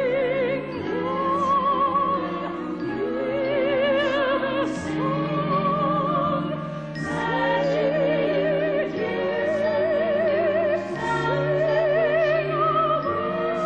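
Operatic soprano singing a wordless passage of long held notes, each with a wide vibrato, moving to higher notes and back over a low sustained accompaniment.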